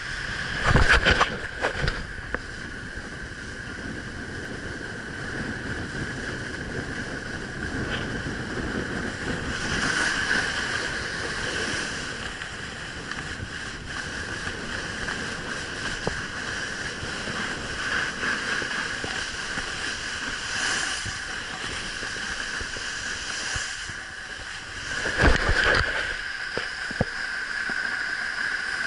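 Steady rushing and scraping of a snowboard sliding over packed snow, mixed with wind over an action camera's microphone, with loud knocks about a second in and again around 25 seconds.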